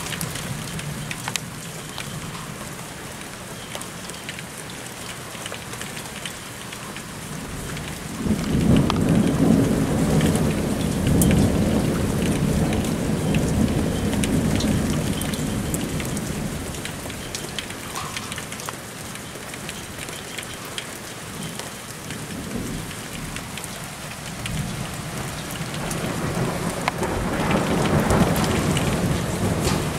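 Steady rain falling during a thunderstorm. A long rumble of thunder starts about eight seconds in and lasts several seconds, and another rumble builds near the end.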